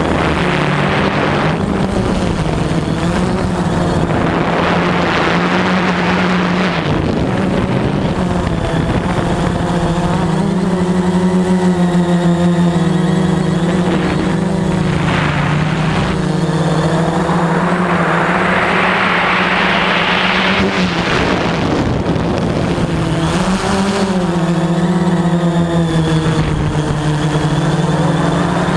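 Veho Muvi Q1 quadcopter's electric motors and propellers humming steadily, the pitch wavering slightly as it manoeuvres. A rushing noise swells upward from about 17 seconds in and breaks off at about 21 seconds.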